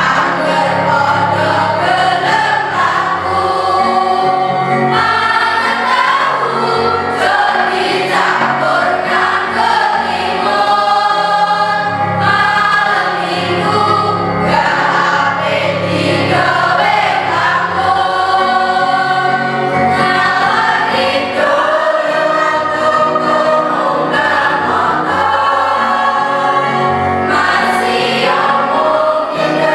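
A mixed choir of boys and girls singing together, with several voices on different notes at once.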